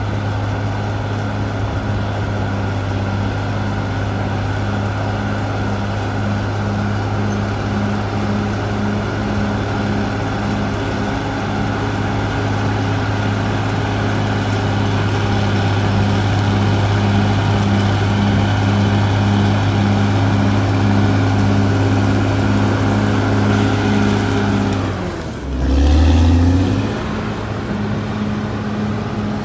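Caterpillar D6R XL bulldozer's diesel engine running steadily under load, with a regular pulse a little more than once a second. About four seconds before the end the engine note drops and then swells briefly before settling back.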